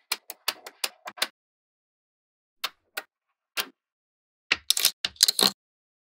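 Small magnetic balls clicking and snapping together as they are set in place by hand: a quick run of clicks at the start, three single clicks in the middle, then a dense cluster of louder clicks near the end.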